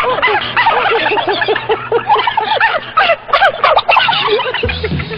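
Canned laughter: many voices laughing together in quick chattering ha-ha bursts, ending a little before the end as music with a bass line comes in.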